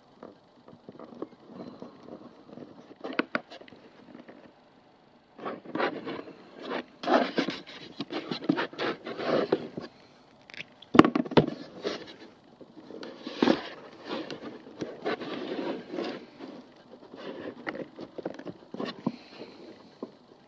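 Handling noise from the charger and its leads being moved about by hand: irregular scraping, rustling and clicks, busier from about five seconds in, with a sharp knock about eleven seconds in.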